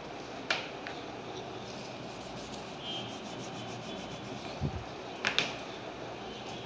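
Marker pen writing on a whiteboard: faint rubbing strokes with a few sharp clicks and a low thump, over steady background noise.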